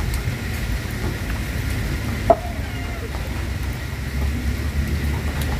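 Dishes being washed by hand: a steady hiss with a low rumble, and one sharp clink of a drinking glass a little over two seconds in.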